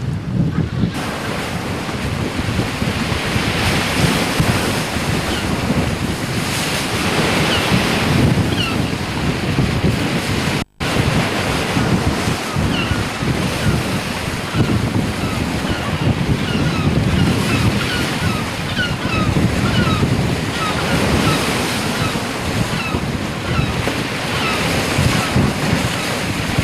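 Sea surf washing on the shore in slow swells, with strong wind buffeting the microphone. Faint short high chirps sound through it in the second half. The sound drops out completely for a split second about eleven seconds in.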